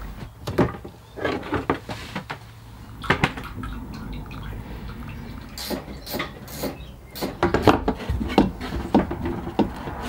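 Scattered clicks and knocks of hands working a plastic water hose and its fittings onto a tank connection.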